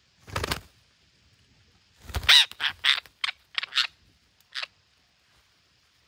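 Red-breasted parakeets giving harsh squawks. There is one short call just after the start, then a loud squawk about two seconds in, followed by a quick run of about six shorter, sharp calls over the next two and a half seconds.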